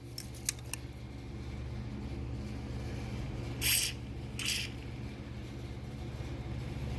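Two short hisses of aerosol cable lube sprayed into a motorcycle throttle cable a little over halfway through, after a few light clicks near the start. A steady low hum runs underneath.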